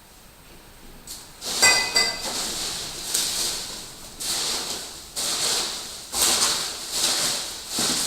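Packaging being handled during an unboxing: repeated rustling and crinkling, about one burst a second, with a short ringing clink about a second and a half in.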